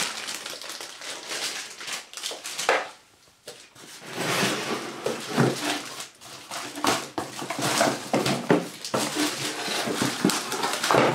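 Plastic wrapping crinkling and cardboard packaging rustling and scraping as parts are handled and lifted out of a box, in irregular bursts with a brief lull about three seconds in.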